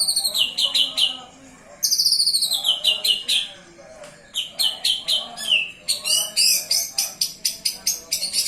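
White-rumped shama singing loudly in repeated phrases of falling whistled sweeps, ending in a fast run of sharp notes near the end; a fainter, lower chirping goes on underneath.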